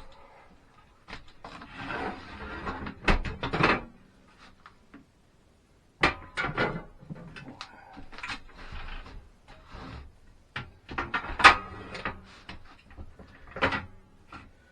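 Irregular wooden knocks, clunks and scraping from boards and hand tools being worked, with the loudest knocks about 3, 6, 11 and 13 seconds in.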